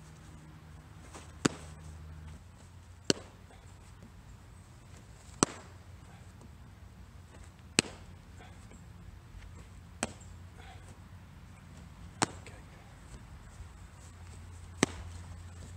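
Baseballs smacking into a catcher's leather mitt: seven sharp pops about two seconds apart, over a faint steady low hum.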